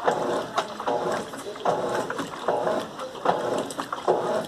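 Colormaq LCA11 top-loading washing machine agitating a load of bed and bath linens. The agitator drive whirs in short strokes a little under a second apart, back and forth, with a click as each stroke starts.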